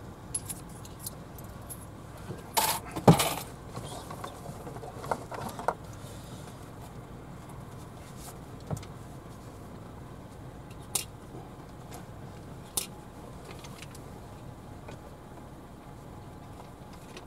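Coins jingling and clattering as they are handled and fed into a car park exit pay machine, loudest about 3 s in, followed by a few single sharp clicks. A car engine idles underneath.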